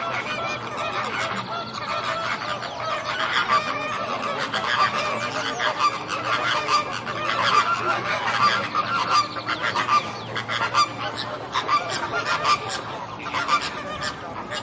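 A flock of flamingos honking, with many calls overlapping without a break.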